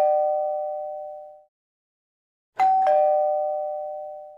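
A two-note ding-dong chime, a higher note followed by a lower one, each ringing out and fading over about two seconds. One chime is fading away at the start, and another sounds about two and a half seconds in.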